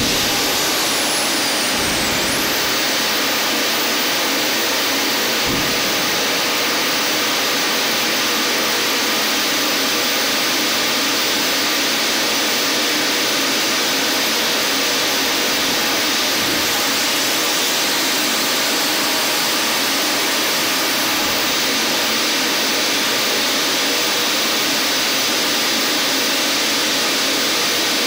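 Steady loud rush of a Boeing 747-400's air-driven hydraulic pumps running hard on ground pneumatic air to swing the landing gear, with a couple of low thumps in the first six seconds as the body gear comes down.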